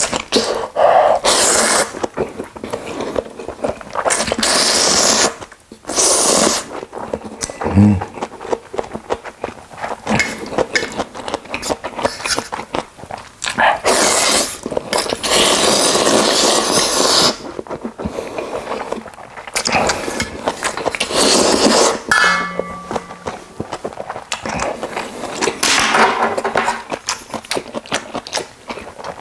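A person slurping thick ramen noodles, in a series of long loud slurps of one to three seconds each, with chewing between them.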